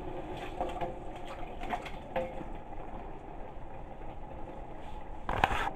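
Goat meat being scraped with a spoon out of a metal bowl into a cooking pot: a few faint scrapes and knocks over a steady hum, with a louder metal clatter near the end.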